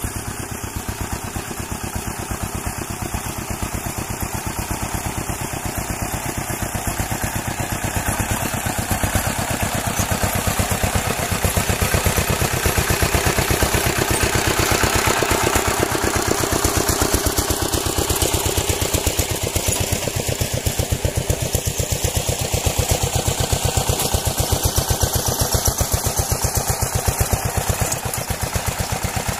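An engine running steadily with rapid, even firing pulses, a little louder through the middle.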